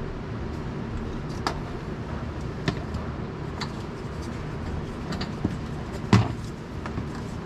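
Plastic wiring harness connectors and wires being handled and fitted, giving scattered small clicks and one louder knock about six seconds in, over a steady low hum.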